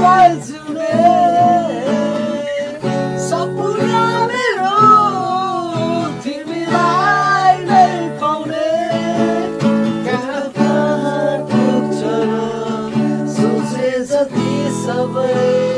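Music: a strummed acoustic guitar playing chords under a singing voice whose melody rises and falls in phrases.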